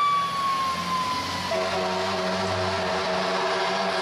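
Fire truck siren, its wail falling slowly in pitch and fading, then a steady blaring horn from about a second and a half in, with the truck's engine rumbling underneath.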